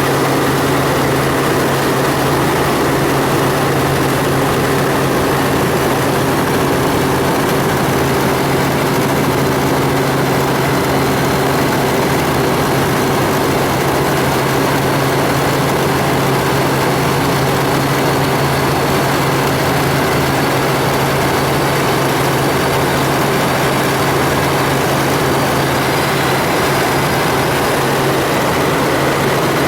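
Helicopter in steady flight: a constant loud drone of engine and rotor, with a low steady hum and its overtones over a wide rushing noise.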